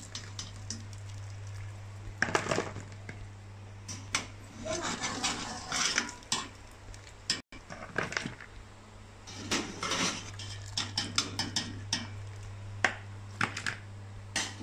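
A wire-mesh strainer scraping and clinking against a metal pot as boiled meat is scooped out, then wet pieces being tipped into a plastic bowl, in irregular clatters. A steady low hum runs underneath, with a brief dropout about halfway.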